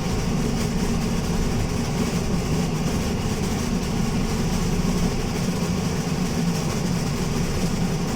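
Alexander Dennis Enviro200 MMC bus running with a loud, steady low rumbling.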